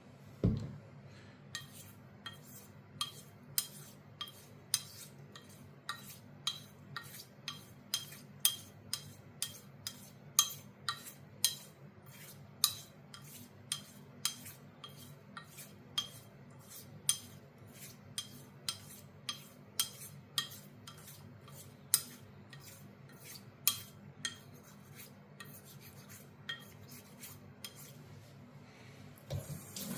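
Sheffield straight razor being honed on a wet sharpening stone: a light metallic click on each stroke, about two a second, with a duller knock about half a second in.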